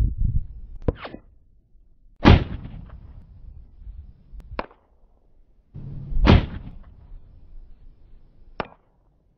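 .308 Spanish Mauser rifle firing two shots about four seconds apart, each followed by a long rolling echo. Fainter sharp clicks come before, between and after the shots.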